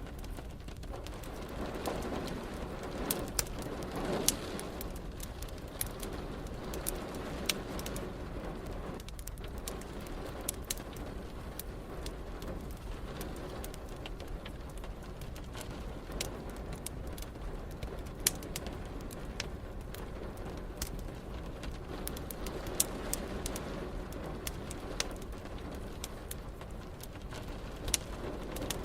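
Wood fire crackling with scattered sharp pops over a steady hiss of rain. A low rumble swells a couple of seconds in and again near the end.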